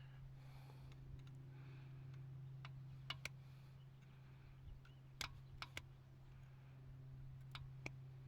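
Scattered light clicks of needle-nose pliers and hydraulic lifters in a Chevy 350 Vortec block, about seven in a few seconds, as stuck lifters are worked at to pull them out. A steady low hum runs underneath.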